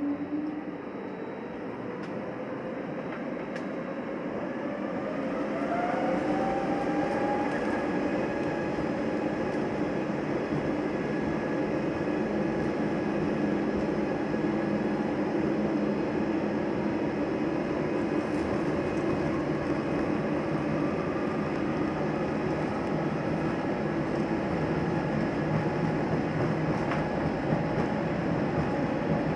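Airbus A320neo's underwing turbofan engines, Pratt & Whitney geared turbofans, spooling up to takeoff thrust heard from inside the cabin: a rising whine about five seconds in, then a steady roar with the rumble of the wheels on the runway during the takeoff roll.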